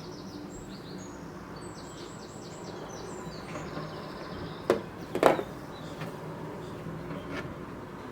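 A bird chirping in quick runs of short, high repeated notes over a low steady hum, stopping about four and a half seconds in. Two short knocks follow shortly after.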